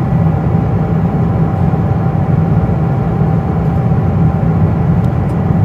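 Steady cabin noise of a Boeing 777-200 in cruise flight: a constant low rumble of engines and airflow, with a faint steady whine on top.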